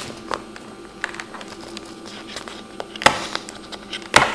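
Fingernails picking and scraping at the sealed edge of a small cardboard box, a run of small clicks and scratches with two sharper ones about three and four seconds in, over a faint steady hum.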